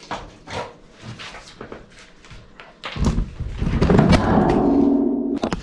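Scattered knocking and clattering while junk is handled in a wooden boat's bilge. About three seconds in there is a loud thud, then a loud, drawn-out sound that holds a steady pitch before cutting off near the end.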